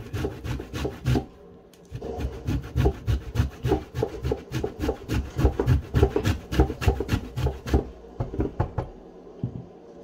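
Fresh ginger grated on a stainless-steel box grater on a plastic cutting board: quick rasping strokes, about four or five a second, with a short break between one and two seconds in, dying away near the end.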